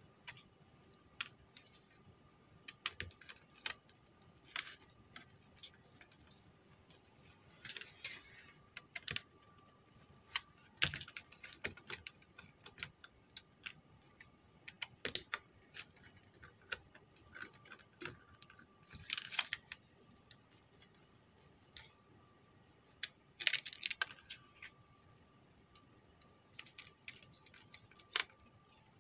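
Irregular small clicks, taps and brief rattles of a screwdriver and plastic parts as a car stereo's front panel is taken apart, with a few denser bursts of rattling along the way. A faint steady high tone runs underneath.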